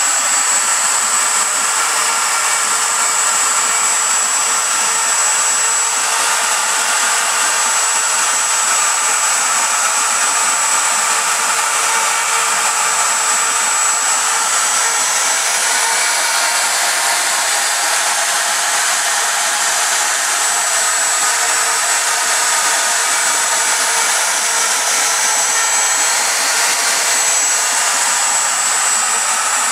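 Porter-Cable router spindle of a home-built belt-drive CNC router running at full speed with a steady high whine, its bit cutting cherry wood at a 200 inch-per-minute feed. A lower steady hum under it drops out about halfway through.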